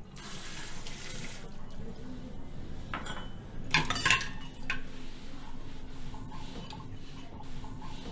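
Water running from a tap into a sink for about a second and a half, then dishes and glassware clinking as they are handled, over a steady low hum.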